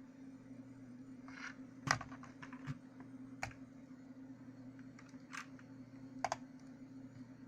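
Keys of a Motospeed CK888 mechanical keyboard pressed now and then: a scattering of separate sharp clicks, with a quick double click near the end, over a steady low hum.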